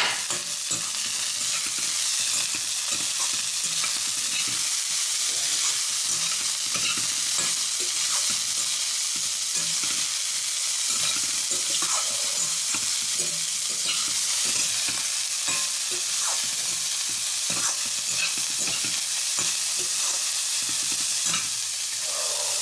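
Chopped vegetables sizzling in hot oil in a steel kadai, stirred with a metal perforated spatula that scrapes and knocks against the pan again and again.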